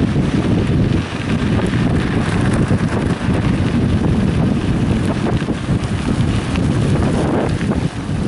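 Wind rushing over the microphone of a camera riding on a mountain bike, with the tyres rolling over gravel and small rattles and clicks throughout.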